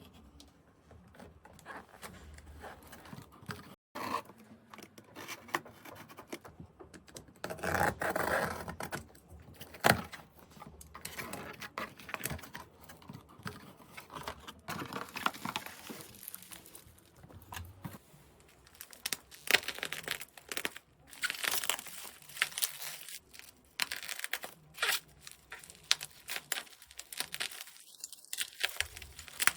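Packaging being torn open and crinkled by hand: irregular tearing and rustling, with scattered sharp clicks and knocks, the loudest about ten seconds in.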